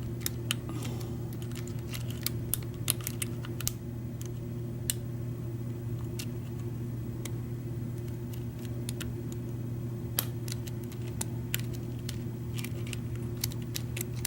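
Small metal clicks and rattles of a Schlage F-Series door knob lock being handled and worked on by hand, irregular and scattered throughout. A steady low hum runs underneath.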